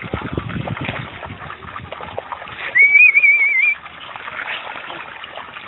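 A loud, high, wavering whistle lasting about a second, partway through, over scattered scuffing and rustling noises.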